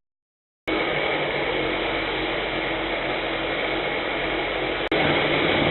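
Steady machine running noise that starts abruptly under a second in after a brief silence, with a hard cut near the end after which it carries on a little louder.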